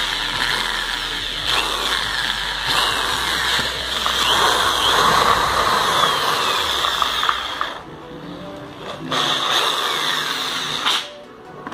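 Hand-held electric drill running with a small twist bit boring through a thin plastic miniature truck body, a steady high whine with the rasp of the bit cutting plastic. It stops for about a second near two-thirds of the way, runs again, and cuts off shortly before the end.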